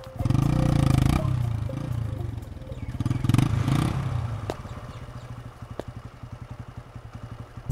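Motorcycle engine revving twice, about a second in and again around three seconds in, then settling to a steady idle.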